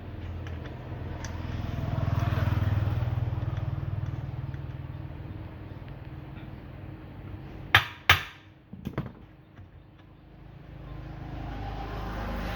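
A steady low engine hum that swells and fades, as of a vehicle passing, then swells again near the end. Two sharp knocks come close together about eight seconds in, followed by a few lighter knocks.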